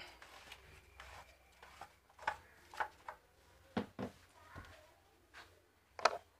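Irregular small clicks and knocks of hand handling at the engine's plastic oil filler cap and a bottle, about eight in all, with the sharpest just before the end. The engine is not running.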